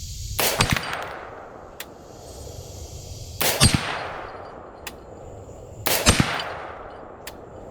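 Three .223 AR-15 rifle shots, about two and a half seconds apart. Each shot is followed a little over a second later by a faint, sharp tick: the bullet striking a distant steel target.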